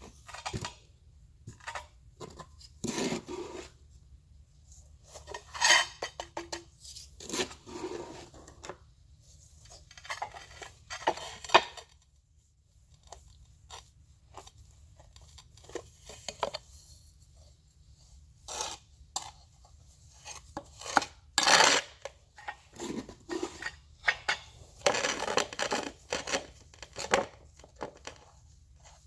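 Metal trowel scraping and clinking as thinset mortar is spread onto the back of a tile, in irregular strokes of varying length.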